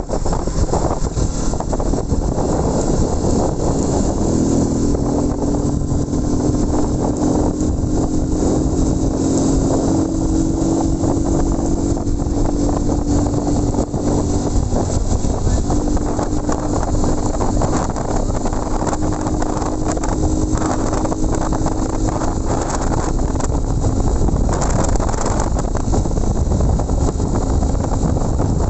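Motorcycle riding at highway speed: steady wind rushing over the microphone with the engine droning underneath at a steady cruise. A steady engine tone stands out from about four seconds in, then fades back into the wind.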